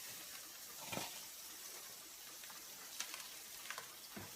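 Faint, even sizzling and crackling of hamburgers frying in a pan on the grill, with a few soft clicks.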